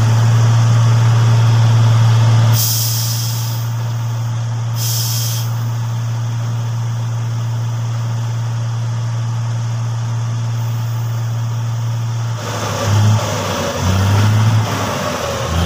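Heavy diesel engine running steadily at a low, even note, with two short hisses of released air a few seconds in, typical of truck air brakes. Near the end the engine note wavers and breaks up.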